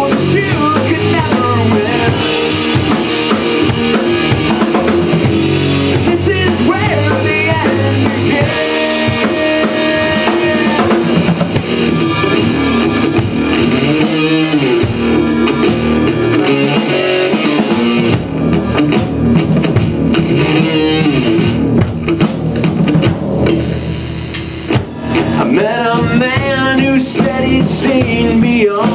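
Live rock band playing an instrumental passage: electric guitar over a full drum kit with bass drum and snare, no singing. The playing drops back briefly about three-quarters of the way through, then builds again.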